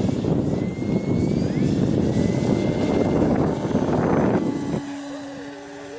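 Electric Carbon Z Cessna 150 RC model plane's motor and propeller running during a low pass, with a faint rising whine. The sound cuts off abruptly near the end, and two faint steady tones follow.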